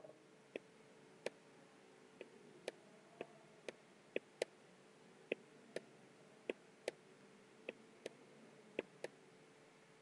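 Faint, sharp clicks at an irregular pace, about one or two a second, from the input device used to hand-write an annotation onto a presentation slide with an on-screen pen.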